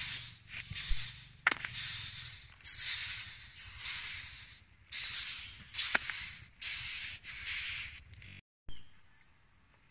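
Rhinoceros beetles scrabbling over a woven rattan basket: scratchy rustling in repeated bursts, with a few sharp clicks. It stops abruptly about eight and a half seconds in.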